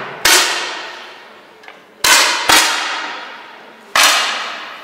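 Four air rifle shots from neighbouring shooting points, each a sharp crack trailing off in the hall's echo, two of them about half a second apart.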